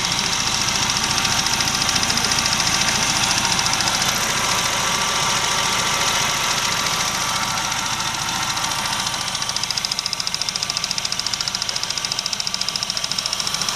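Classic Mini A-series engine idling with a steady fast pulse and a high squealing whine on top. The shop puts the squeal down to crankcase pressure being pulled too low by intake-manifold vacuum when the small vent in the oil filler cap is partly blocked. The running gets a little quieter and the pulsing more even from about nine seconds in.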